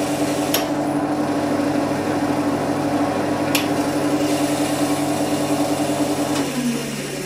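Wood lathe running with a balanced green aspen blank, a steady hum from the machine while its thin 1.6 mm sheet-metal legs vibrate; the stand has lost its rigidity since an earlier heavy, unbalanced turning. Near the end the hum falls in pitch and fades as the lathe slows down.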